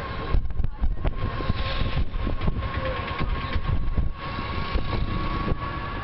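Ride noise inside a moving open-sided bus: a continuous low rumble of engine and road with irregular low thumps and a faint steady whine.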